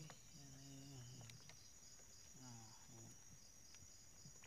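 Faint, steady high-pitched insect chirring with a pulsing note about three times a second. Faint low voices murmur briefly about half a second in and again near three seconds.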